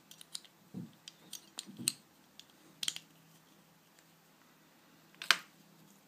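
Plastic Rubik's cube pieces clicking and clacking as they are handled and fitted back into a partly reassembled 3x3x3 cube, with a sharper, louder click about five seconds in.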